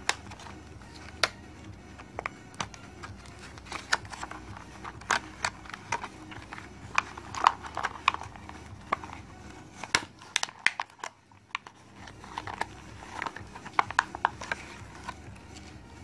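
Clear plastic blister packaging crinkling and clicking as it is handled and the plastic cable clips are pushed out of it, in irregular sharp clicks with a brief lull about eleven seconds in.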